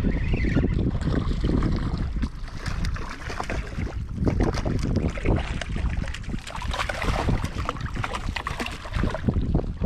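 Wind buffeting the microphone in a steady low rumble, with a scatter of small crunches and knocks from footsteps on oyster-crusted rocks.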